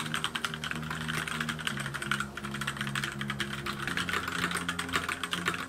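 Continuous fast typing on a Keychron K6 mechanical keyboard with Gateron Red linear switches and ABS keycaps: a dense, even stream of light key clicks.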